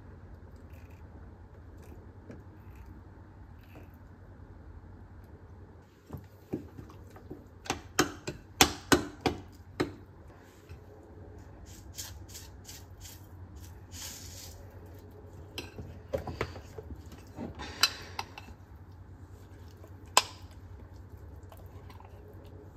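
Knife cutting cheese by hand over a ceramic bowl, then a run of sharp clicks and clinks of metal utensils against the bowl, loudest about eight to ten seconds in, with a few more scattered later. A steady low hum runs underneath.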